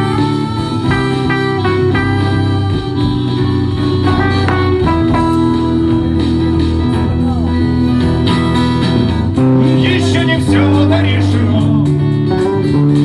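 Live guitar music: an instrumental break between verses, guitars playing sustained melody notes over a steady low line.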